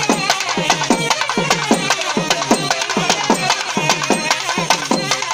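Traditional festival percussion: drums struck fast and hard, about four strokes a second, each stroke ringing briefly and dropping in pitch, with a wavering melody above.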